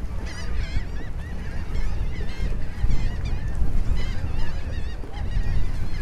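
Strong wind buffeting the microphone with a low rumble, while many birds keep up quick, wavering chirps and calls.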